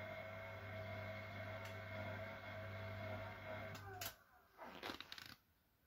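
Siemens Siwamat Perfecta SL washing machine humming steadily. The hum dips briefly in pitch and cuts off with a click about four seconds in, followed by a few short clicks and rustles.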